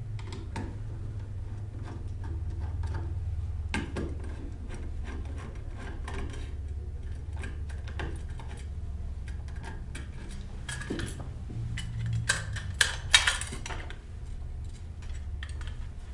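Small metal clicks and clinks as a screwdriver backs the screws out of a metal hard drive tray, with a few louder clinks about twelve seconds in, over a steady low hum.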